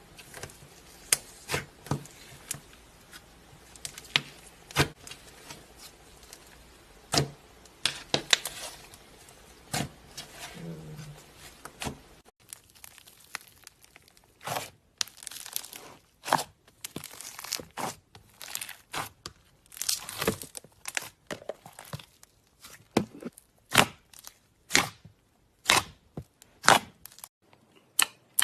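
Slime being squeezed, stretched and poked, giving a long run of sharp pops, clicks and crackles.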